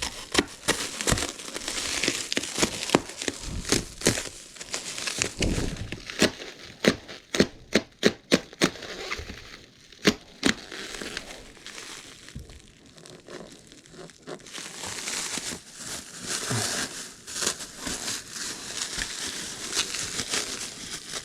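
Packaging crinkling and rustling as it is handled, with a quick run of sharp knocks and clicks about a third of the way in.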